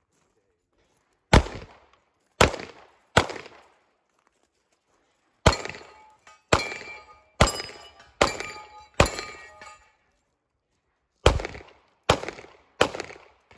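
Handgun shots on an outdoor range: about eleven shots in three strings, three, then five in quick succession, then three, with pauses of about two seconds between strings. Each shot is sharp and loud with a short echoing tail, and several in the middle string leave a faint ringing after them.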